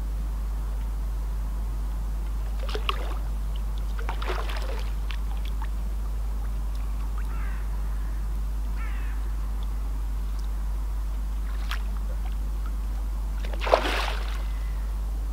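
A hooked common carp splashing at the surface as it is played toward a landing net: a few short splashes, the loudest near the end.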